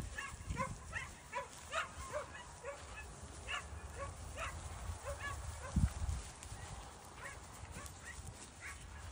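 A dog barking in short, high-pitched yaps, several a second at first, then fewer and further apart. A low thump about six seconds in.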